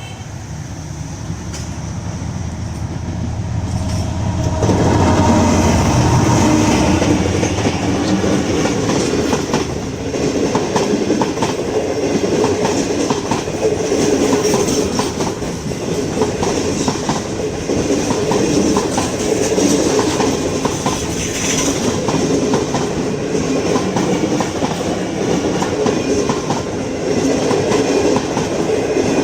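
Diesel-hauled passenger train passing close by: the locomotive's low engine rumble swells over the first few seconds, then the coaches roll past with a continuous clickety-clack of wheels over rail joints.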